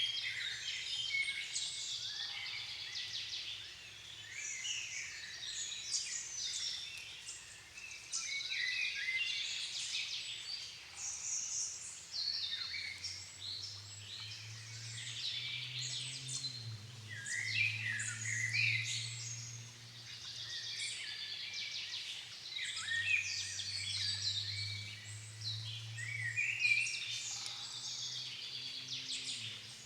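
Dusk chorus of many songbirds singing at once, their high, overlapping songs and calls coming thick and fast. A faint low steady hum sits beneath from about twelve seconds in, dropping away for a few seconds and returning.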